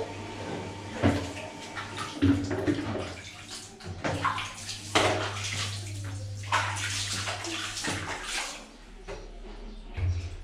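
Water sloshing and splashing in a plastic basin as hands scoop and pour it while bathing a small child, in a series of separate splashes.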